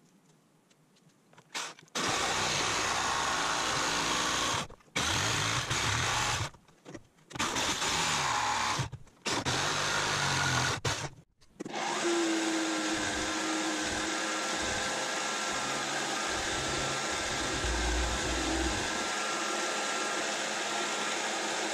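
Electric jigsaw cutting a wooden board in several bursts, stopping and starting a few times. About twelve seconds in it gives way to a milling machine running steadily, its end mill cutting into a wooden part.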